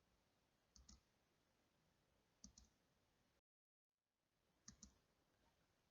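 Near silence broken by three faint double clicks, each pair a quick click-click, about two seconds apart.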